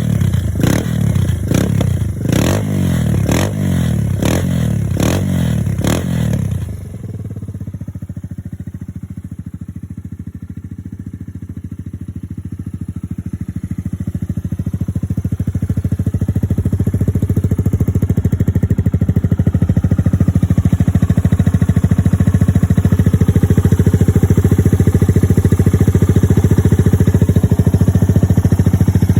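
Suzuki VanVan 200's single-cylinder four-stroke engine revved in a quick run of about eight throttle blips, then dropping suddenly to a steady idle about six and a half seconds in. The idle grows gradually louder over the following several seconds and then holds steady.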